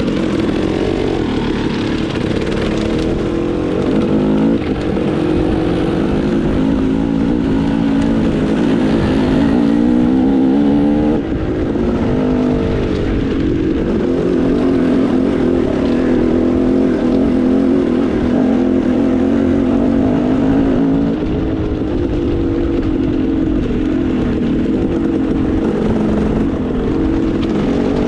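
Dirt bike engine running under way, its revs rising and falling as the rider throttles and shifts, with a brief drop in level about eleven seconds in.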